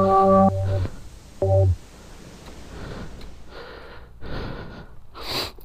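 Several heavy, noisy breaths in a row, typical of a rider out of breath. Before them a steady buzzing tone stops about half a second in and sounds once more briefly about a second and a half in.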